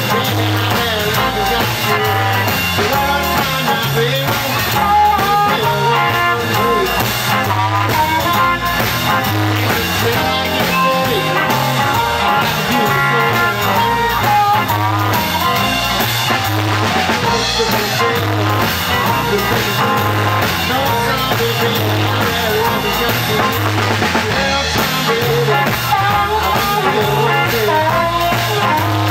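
Live electric blues band playing: a blues harmonica wails bending lines over electric guitars and a drum kit keeping a steady beat.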